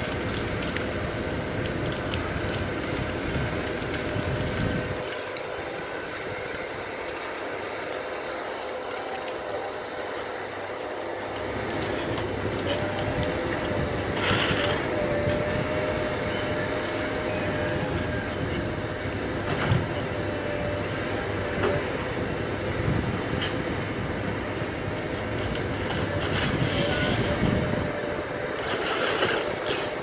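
Tracked forestry harvester at work: its engine and hydraulics run steadily under a high whine while the harvester head feeds and delimbs a stem and cross-cuts it into logs, with louder noisy bursts about halfway through and again near the end.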